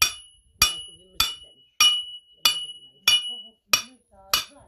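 Steady hammering on metal: about eight sharp strikes, a little under two a second, each ringing briefly.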